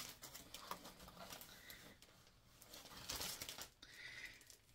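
Faint rustling and light handling noises as a stack of small paper-labelled items in packaging is shuffled through by hand, with a louder rustle about three seconds in.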